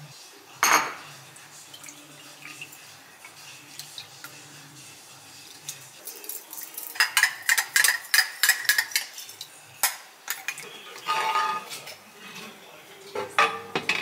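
Kitchen dishes, pots and cutlery being handled: a sharp knock about a second in, then a run of quick clinks and clatters in the middle, a brief metallic ring, and a few more clinks near the end.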